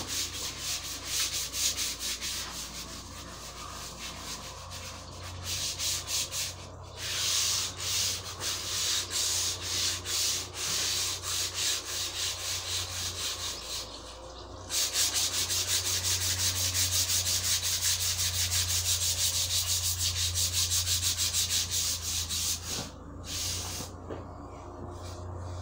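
Hand sanding a long rounded wooden piece with sandpaper: quick back-and-forth rasping strokes, about three a second, with brief pauses a few times.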